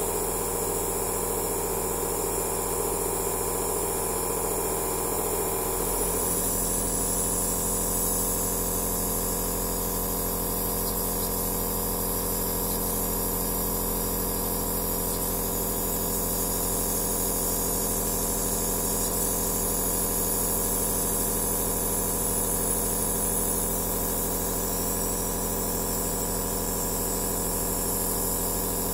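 Nebulizer (aerosol therapy machine) compressor running steadily: a motor hum under a constant hiss of air and mist. About six seconds in, the hum's tone shifts slightly and the hiss grows a little brighter.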